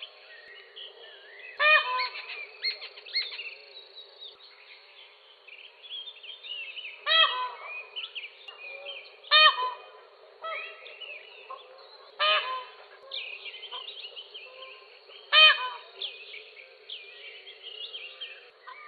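Peacock (peafowl) giving loud, short honking calls five times, spaced a few seconds apart, with smaller birds chirping steadily in the background.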